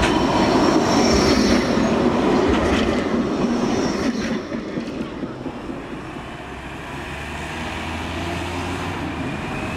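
A Bombardier Flexity 2 tram running past close by on street-running track, with the rumble of wheels on rail and a few faint high wheel squeals. It is loud for the first four seconds, then quieter as it draws away.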